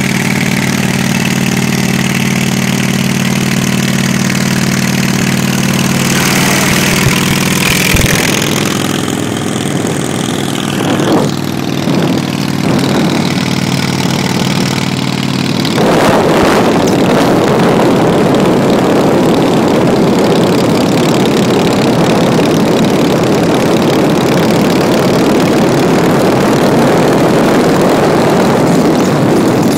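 Road noise from a car and a cruiser motorcycle travelling side by side at highway speed. A steady engine drone runs for the first half; about halfway through, a louder, rougher rushing noise takes over.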